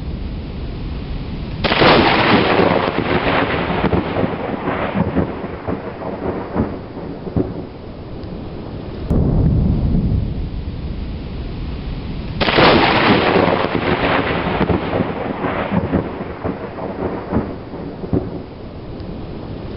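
Thunderstorm with steady rain: two sharp thunder cracks, about two seconds in and again about twelve seconds in, each trailing off into crackling, rolling rumble over several seconds, with a deeper low rumble swelling about nine seconds in.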